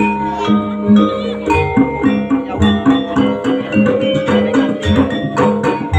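Jaranan music: a repeating pattern of pitched, struck metal notes over regular drum strokes, at a steady beat.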